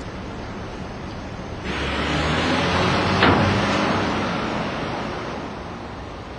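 A car drives away: engine and tyre noise swell about two seconds in, then fade steadily, with a brief click at the loudest point.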